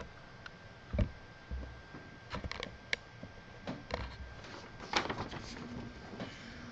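A handful of scattered clicks and light knocks, the strongest about five seconds in, over a faint steady high-pitched hum.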